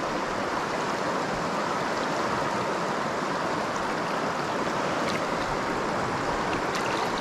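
Shallow river running steadily over a cobble bed, a constant rush of moving water.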